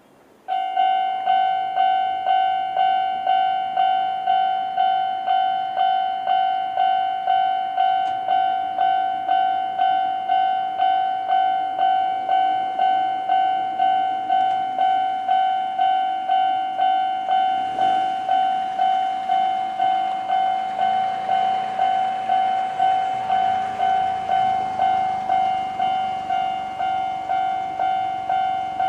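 Japanese level-crossing alarm of the older standard electronic type, switching on about half a second in and ringing a steady, regularly repeating high ding. Over the second half a Konan Railway 7000-series electric train runs through the crossing; its wheel and running noise swells under the alarm and fades near the end.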